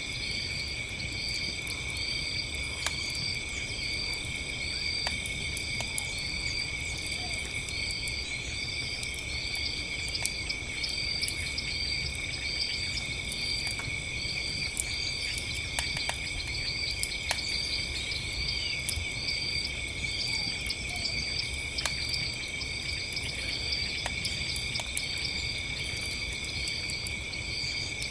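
A chorus of crickets and other insects trilling steadily, one chirping in a regular pulse about one and a half times a second, over the scattered snaps and pops of a crackling campfire and a low steady rumble.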